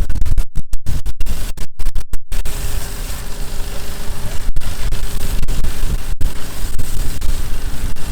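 Loud, rough rumbling noise, heaviest in the low end, broken by a quick run of brief audio dropouts in the first two seconds and two more single dropouts later: the choppy recording.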